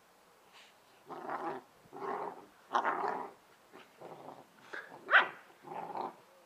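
Two Bernese Mountain Dog puppies growling and barking as they play-fight, in about six short bursts, the loudest a high, rising bark about five seconds in.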